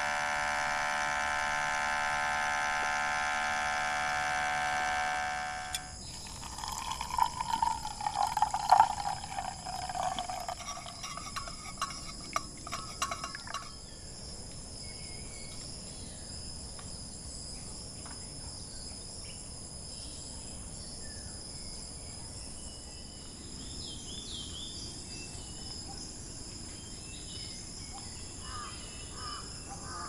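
Outin portable espresso maker's pump buzzing steadily, cutting off about six seconds in. Liquid sputters and pours for several seconds after it stops. Then a steady insect chorus with a few short bird calls.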